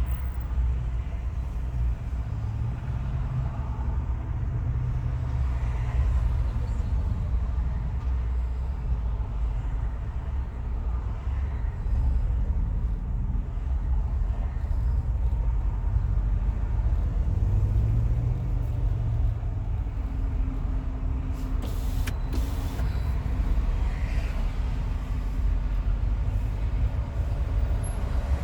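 Car driving on a freeway: a steady low rumble of tyre and road noise that swells and eases gently.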